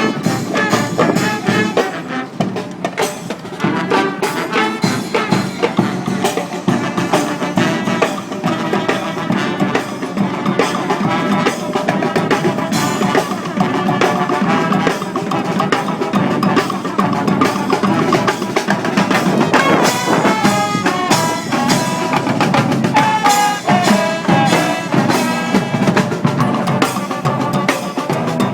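A brass street band playing, with drums beating throughout and horns carrying the tune.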